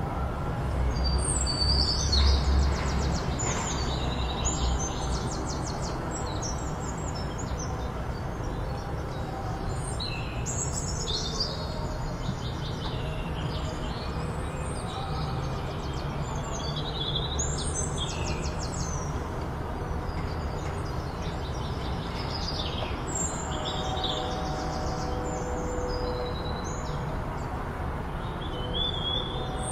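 Small birds chirping and trilling in quick repeated notes, on and off all the way through, over a steady low background rumble that is a little stronger in the first few seconds.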